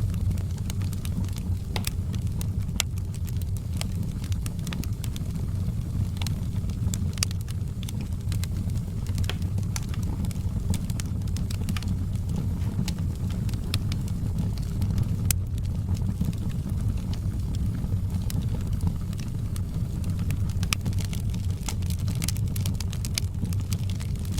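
Wood fire burning: many short, sharp crackles of burning wood over a steady low rumble.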